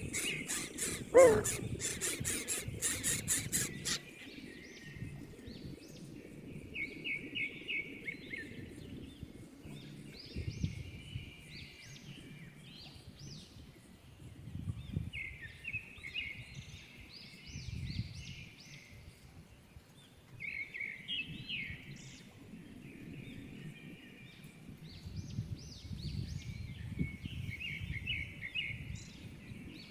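Shrill, rapid high-pitched squealing for the first few seconds, with one sharp falling squeal about a second in. Then short bursts of bird chirps and trills every few seconds.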